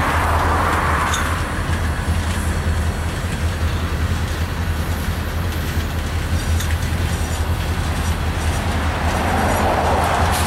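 Freight train cars (a tank car and boxcars) rolling past on steel rails: a steady low rumble with wheel and rail noise and faint clicking over the joints. The wheel noise swells louder at the start and again near the end.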